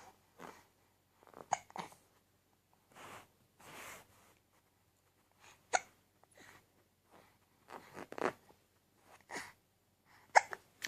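A baby hiccupping: a series of short, sharp hics at irregular intervals, with a few soft breaths between them.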